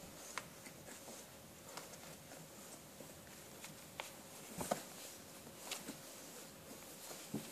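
24-day-old beagle puppies shuffling and crawling over each other on a towel over newspaper: faint rustling with scattered soft taps and clicks, the loudest a little before the five-second mark.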